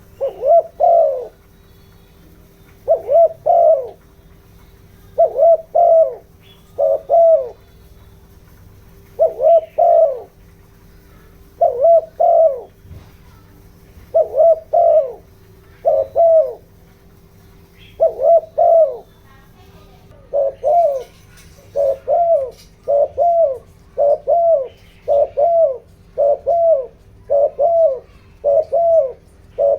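Spotted dove cooing over and over in short two- or three-note phrases, the phrases coming closer together and more regularly from about halfway through. It is the rapid lure-bird cooing used to rouse wild doves. A faint steady hum lies under it.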